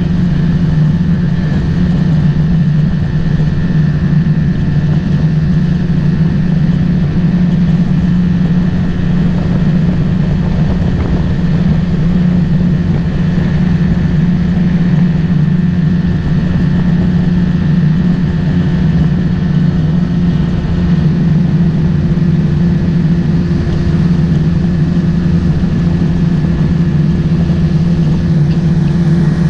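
Motorboat engine running steadily, an even loud drone that does not change in pitch.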